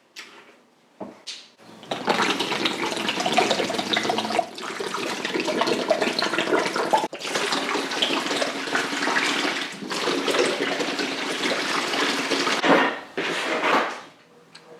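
Liquid pouring into a container in several long pours, with short breaks between them.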